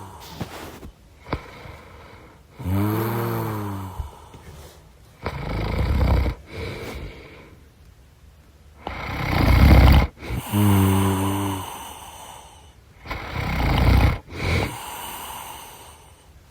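Snoring in slow breaths every three to four seconds. Some breaths are a low buzzing rattle, and the others are a rough, noisy rush of air.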